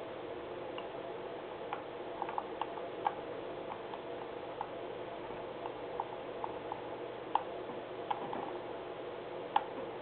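Irregular clicks of a computer mouse scroll wheel as a page is scrolled, some coming in quick runs, over a steady low hum.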